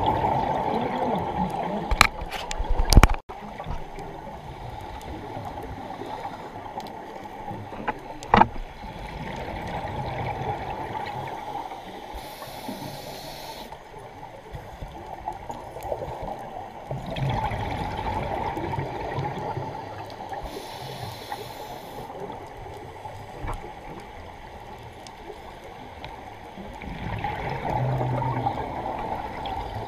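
A scuba diver's regulator breathing and exhaust bubbles heard underwater: a steady bubbling hiss with a louder burst of exhaled bubbles about every seven or eight seconds. Sharp knocks come around two to three seconds in and again at about eight seconds.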